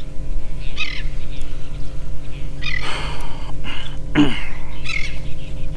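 A bird calling repeatedly, several separate calls a second or so apart, one of them sliding down in pitch, over a steady low hum.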